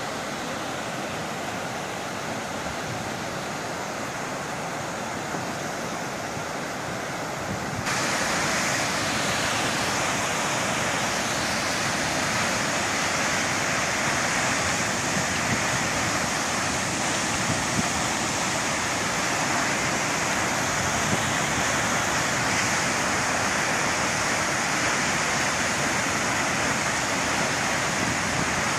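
Steady rush of the Lower Düden Waterfall at Lara, a large waterfall plunging off a cliff into the sea. About eight seconds in it becomes louder and brighter, then holds steady.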